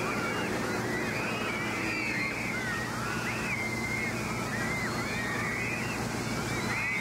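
A crowd of children shrieking, many high voices overlapping, over the steady hiss of fire-hose water spray raining down on them.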